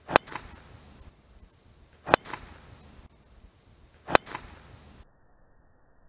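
Golf driver striking a teed ball: three identical sharp cracks two seconds apart, each followed by a fainter echo a fraction of a second later.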